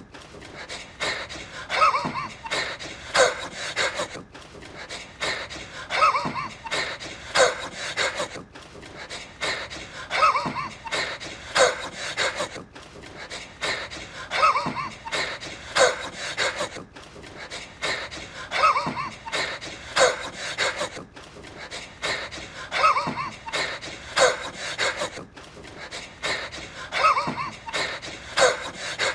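A man wheezing in short, gasping breaths. The same clip of about four seconds repeats over and over, with a brief gap at each restart.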